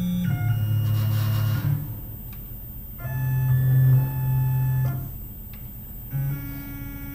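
Tormach PCNC mill's stepper motors giving held, organ-like tones as the table is jogged into position. There are several separate jogs, each a second or two long at its own pitch, with short pauses between. A brief hiss comes about a second in.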